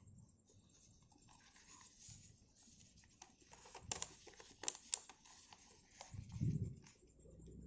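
Paper rustling and crinkling as a square of origami paper is folded and creased by hand, with a few sharp crackles about four to five seconds in. A soft low thump follows about six and a half seconds in.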